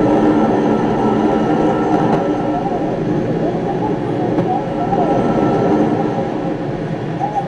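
Horror film soundtrack playing: a steady, rumbling drone with faint wavering tones over it.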